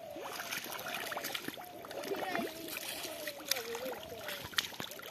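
Bare hands sloshing and squelching through shallow mud and water, with small splashes and scattered wet clicks. A faint wavering tone runs underneath.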